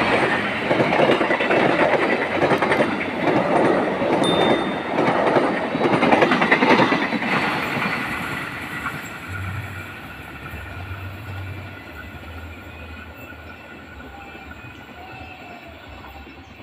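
Passenger train coaches rolling past close by, wheels clattering rhythmically over the rails. From about eight seconds in, the sound fades steadily as the train moves away.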